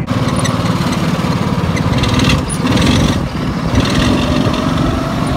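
Go-kart's small engine running steadily while the kart is driven.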